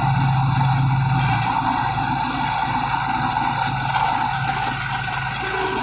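Diesel engine of a Thai Seng Yont Chao Phayu 4.0 rice combine harvester running steadily. Its low drone eases off about a second and a half in, and a faint high whine sits over it.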